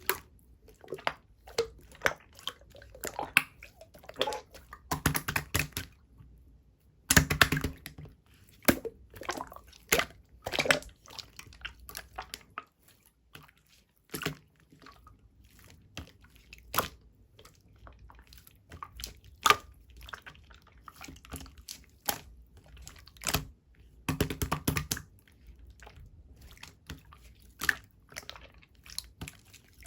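Clear slime being squeezed and poked by hand, making irregular wet clicks and small pops, with a few denser crackling runs of popping.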